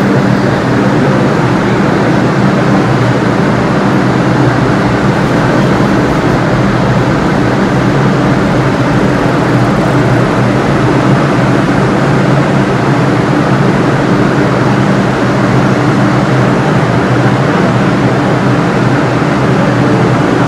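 New York City Subway R142 train standing at the platform with its doors open, giving off a loud, steady hum with low droning tones that ease off a little about halfway through.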